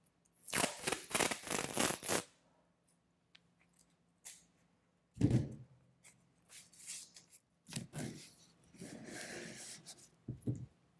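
Blue painter's tape pulled off its roll in a loud rip lasting about a second and a half, then a strip pressed and smoothed down onto watercolor paper by hand with a softer rustle later on. A dull knock about five seconds in and a couple more near the end.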